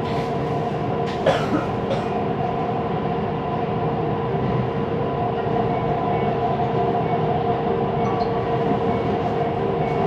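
Siemens Inspiro metro train running at speed, heard from inside the carriage: a steady rolling drone with several held tones, which the uploader calls a weird rolling noise. Two sharp clicks come a little over a second in.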